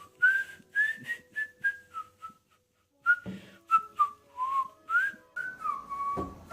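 A person whistling a tune in short notes that rise and fall, with a brief pause about two seconds in.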